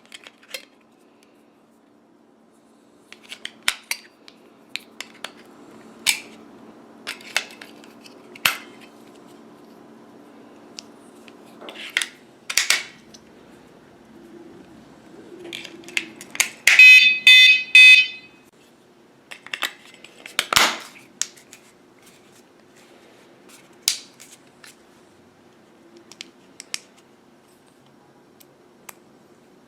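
Small plastic clicks and knocks as AAA batteries and the casing of a bicycle vibration alarm are handled. About 17 seconds in, the alarm gives a loud burst of rapid electronic beeps lasting roughly a second and a half.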